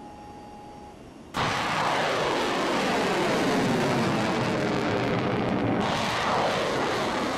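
A thin electronic tone stops about a second in. Then a jet aircraft passing by cuts in suddenly and loudly: a steady rush of engine noise with a sweeping whoosh, which turns brighter and hissier about six seconds in.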